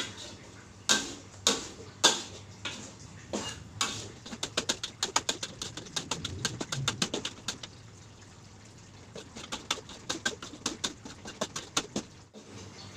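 Metal spatula stirring and scraping green chili paste around a metal wok, clicking against the pan, first in single strokes and then in quick runs of several a second, with a lull midway. The paste is frying over a lowered flame and is stirred steadily so the chilies cook evenly without scorching.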